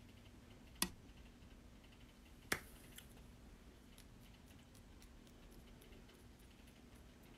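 Two sharp taps of a fingertip on the recording phone, about a second and a half apart, followed by a few faint ticks over a quiet room hum.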